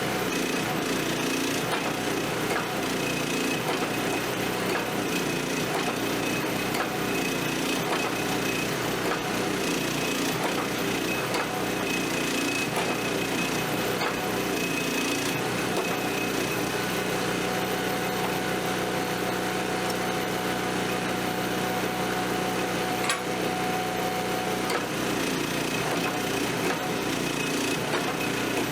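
Steady running hum of motor-driven forge-shop machinery, even in level, with its tone shifting slightly a little over halfway through.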